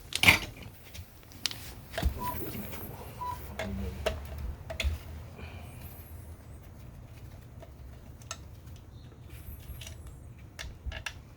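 Scattered clicks and light knocks, with one sharp knock about a quarter second in, over a low steady hum.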